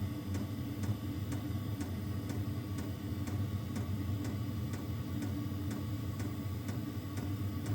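Diesel air heater running: a steady low hum from its fan and burner, with the fuel dosing pump clicking evenly about twice a second.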